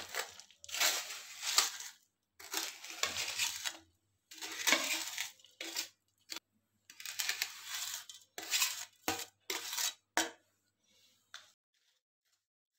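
Wooden spoon scraping ground nuts and crushed gond off a steel plate into a steel kadhai of roasted wheat flour, the plate clinking on the pan: a string of separate scrapes and clinks, with two sharp clinks about nine and ten seconds in.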